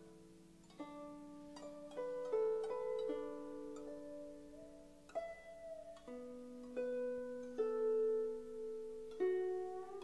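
Guzheng (Chinese zither) playing a slow melody of single plucked notes that ring on and fade, with a few notes bent in pitch by pressing the string.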